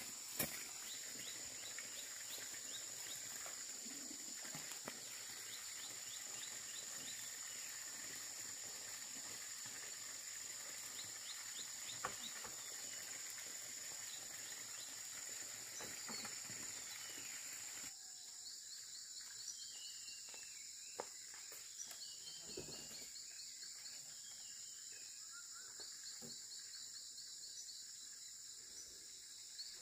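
Outdoor insect chorus: a steady high-pitched drone with short chirping trills repeating every few seconds, and a few faint clicks. The sound drops a little quieter about 18 seconds in.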